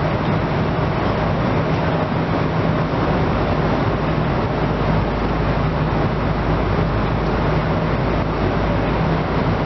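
Steady in-flight cabin noise inside a Boeing 747 airliner: an even rush of engine and airflow noise with a low hum underneath, unchanging throughout.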